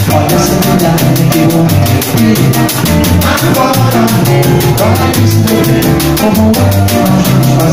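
Live samba groove from a small band: bass guitar playing a running line, guitar, and a drum kit keeping a steady cymbal pattern of about five strokes a second.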